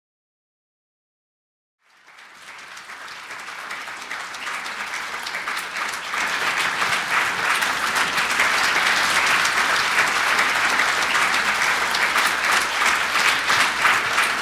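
Silence, then audience applause that starts about two seconds in, swells over the next few seconds and holds steady.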